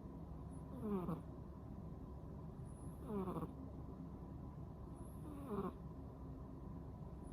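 A 10-month-old cat snoring in its sleep. Three snores come about two seconds apart, each sliding down in pitch.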